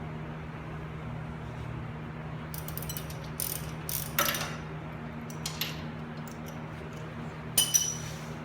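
Metal hand tools clicking and clinking in short bursts while a car's front wheel hub is taken apart, over a steady low hum. The loudest clinks come near the end.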